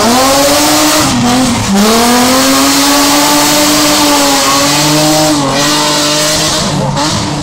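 BMW E30 rally car's engine revving hard as the car slides sideways through a bend, tyres squealing. The revs drop briefly several times, about a second in, just before two seconds, and twice more later.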